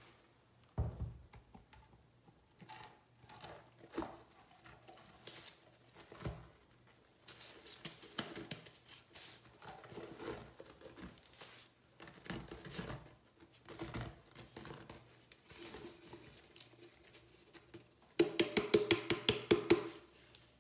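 Comet powdered cleanser being shaken from its canister into a sink basin. The can gives irregular taps and knocks, with soft hissing as the powder falls. Near the end comes a fast run of hard shakes, about ten a second, lasting roughly two seconds.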